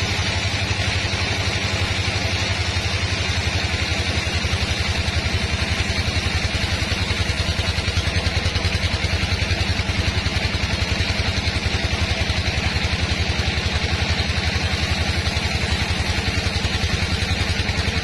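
Sawmill engine running steadily with a fast, even beat.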